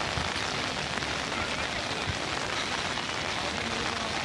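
Heavy rain falling on wet stone paving and garden lawns, a steady even hiss.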